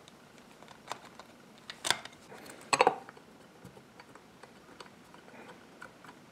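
Small metal clicks and taps from a screwdriver and screws working the float-bowl screws of a Walbro WF-7 carburetor, with the parts knocked against the metal body. A few sharp clicks about a second apart, the loudest about three seconds in, with faint ticks between.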